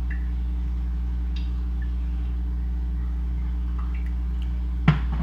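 Steady low electrical hum under quiet kitchen handling: a few faint clinks of a sauce bottle and spoon at a small bowl, then one sharp click near the end.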